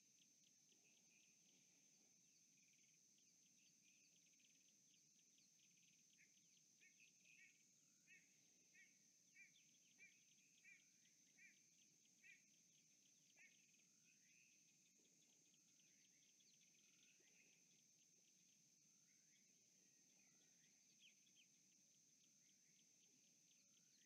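Faint natural ambience. A bird gives a series of about eight quick two-note calls, then a few short slurred notes, over a steady high insect drone.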